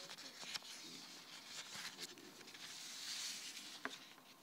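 Faint rustling and handling noise at a lectern microphone, with a few scattered clicks and a sharper click near the end.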